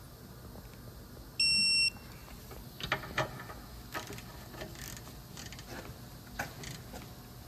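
Snap-on digital torque wrench giving one half-second electronic beep about one and a half seconds in, signalling that the caliper bracket bolt has reached its 65 ft-lb target torque. Scattered clicks of the wrench's ratchet head follow as it is worked on the bolts.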